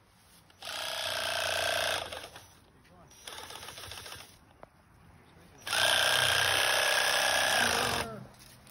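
Cordless reciprocating saw run in three bursts, cutting through the trunk of a sapling at its base: a short run, a brief weaker one, then the longest and loudest run near the end with a steady motor whine.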